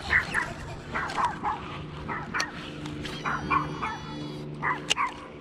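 A dog barking over and over in short, separate barks, over a steady low hum. Two sharp clicks come midway and near the end.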